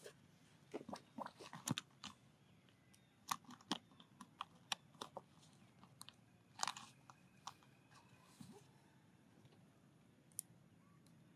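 A macaque lip-smacking: a run of faint, irregular wet clicks, thinning out after the first half, with one louder, longer noise about two-thirds of the way through.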